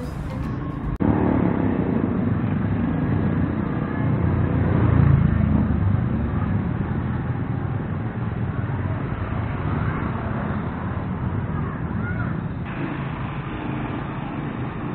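Street traffic noise from cars and motorcycles passing on a city road, loudest as a vehicle goes by about five seconds in.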